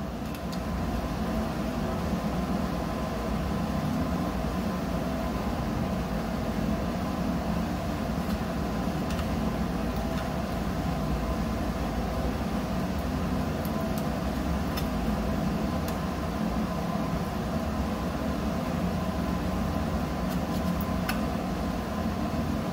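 Steady mechanical hum of running machinery or ventilation, even and unchanging, with a faint steady tone over it and a few faint light ticks.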